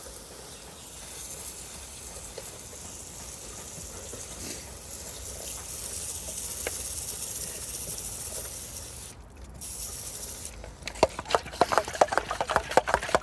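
Water spraying with a steady hiss onto a motorcycle chain, rinsing off loosened dirt and degreaser. It breaks off briefly about nine seconds in, and near the end gives way to a run of rapid, irregular clicks and spatters.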